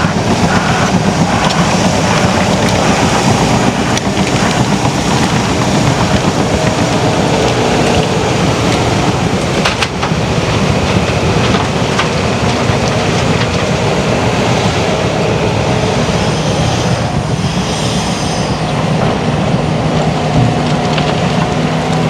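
Heavy tracked earthmoving machinery working: diesel engines running under load over a continuous metallic clatter of steel crawler tracks, with one sharp knock about ten seconds in.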